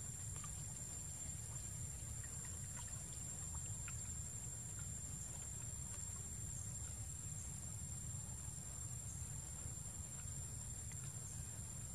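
Faint small splashes and ticks of water from monkeys swimming in a pond, over a steady high-pitched insect drone and a low rumble.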